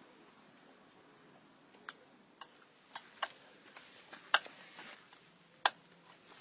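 A few scattered sharp clicks and taps from small parts being handled, as a wire connector is fitted onto the hand-brake cable wrapped around the drill.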